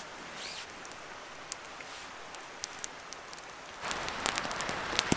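Steady outdoor noise with scattered sharp ticks, like drops or small crackles. It steps up louder and fuller about four seconds in.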